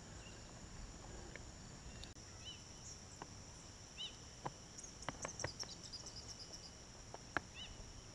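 Faint outdoor pond ambience: a steady high insect drone like crickets, with short bird chirps now and then, a flurry of chirping in the middle, and a few sharp ticks.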